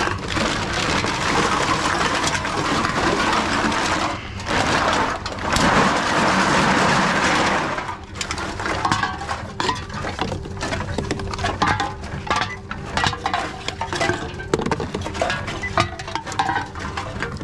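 TOMRA reverse vending machine taking in drink containers: a loud, even mechanical noise for about eight seconds, broken briefly about four seconds in, as it processes them. Then aluminium cans and plastic bottles clink and rattle as they are handled and pushed into the intake, over a faint steady hum.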